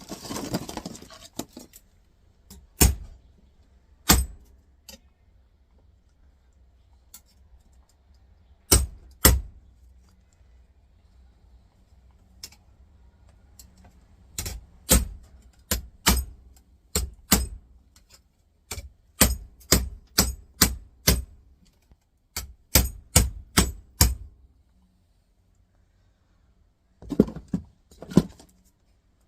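Hammer blows on a semi-stainless metal plate from a laptop docking station, knocking out its pressed-in screw receivers, which prove hard to shift. Sharp metallic strikes come singly at first, then in quick runs of four to six, with a short clatter at the start.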